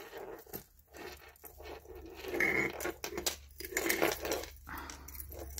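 Small metal jewelry chains and charms clinking and rustling as a tangled clump of costume jewelry is handled and pulled apart, with irregular small clicks.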